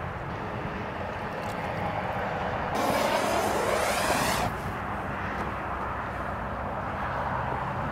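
Fuel squirted from a nozzled can onto broken anvil parts: a loud hiss about three seconds in that lasts a second and a half and stops sharply, over a steady low outdoor rumble.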